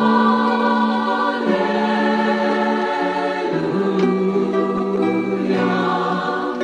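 Slow choral-style music: long held, sung notes that move to a new chord every second or two.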